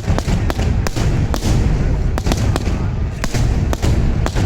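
Fireworks display: a rapid barrage of aerial shells bursting, about ten sharp bangs over a continuous deep rumble of overlapping booms.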